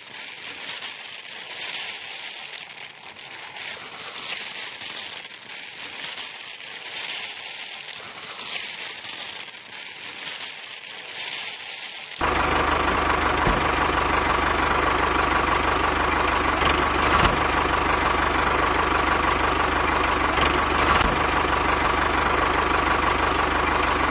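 Dry rustling, crackling hiss for about twelve seconds. Then an abrupt cut to a steady truck engine idling, with a few sharp clicks, which is a sound effect laid over a toy truck.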